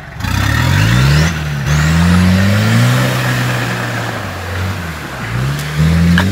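Toyota Land Cruiser's engine revving hard under load as it pulls through deep mud. The pitch climbs over the first few seconds and then holds, drops briefly about five seconds in, and rises again near the end.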